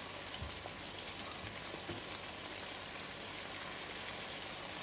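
Penne in tandoori-spiced tomato sauce sizzling gently in a pan on a low flame: a steady soft hiss with a few faint ticks.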